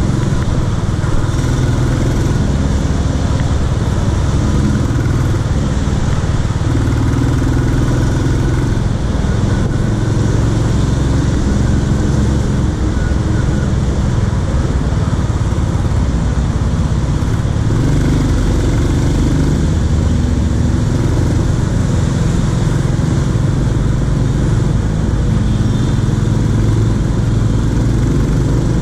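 Royal Enfield Classic 350's single-cylinder engine running steadily while the motorcycle is ridden, with wind and road noise.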